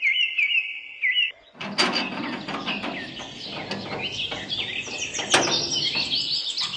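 Bird chirps repeated in quick succession. From about a second and a half in, a busier, noisier stretch follows, with more chirping and scattered clicks.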